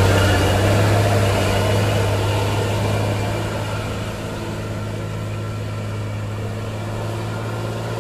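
Hino Ranger three-axle dump truck's diesel engine running at a steady pitch as the truck pulls away. It grows quieter over the first few seconds, then holds at a steady hum.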